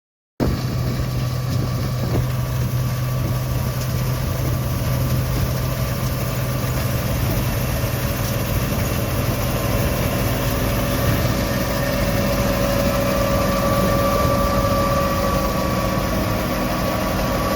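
Engine of vintage harvesting machinery running steadily with a deep hum, cutting in abruptly just after the start. A higher-pitched whine grows stronger in the second half.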